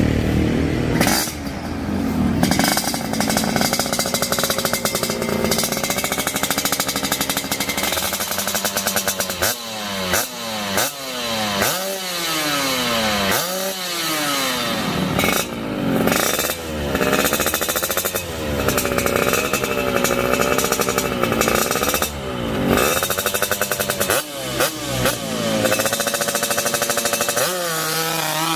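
Motorcycle engine being revved up and down over and over, its pitch swooping down and back up every second or two.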